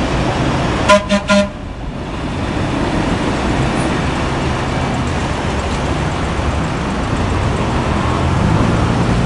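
A horn sounds three quick toots about a second in, over the steady running noise of a 1914 streetcar rolling past on its rails.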